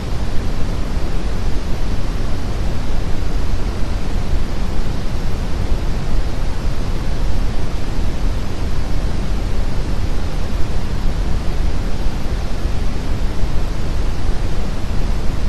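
Loud, steady VCR tape hiss played in reverse: an even rush of noise, heaviest in the bass, that does not change.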